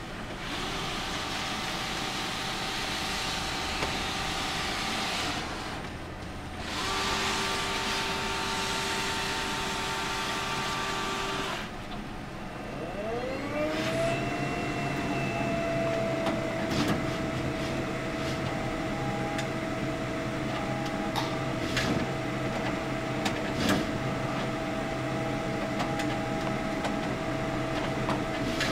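HP Designjet 815MFP large-format scanner-printer running: the scanner's feed motor runs in two stretches with a short pause between them, then a motor in the printer spins up with a rising whine that settles into a steady hum, with scattered clicks over it.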